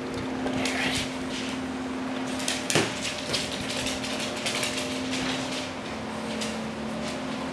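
A ball bouncing on a hardwood floor and a dog's claws clicking on the boards as it runs after it, with one loud knock about three seconds in. A steady low hum runs underneath.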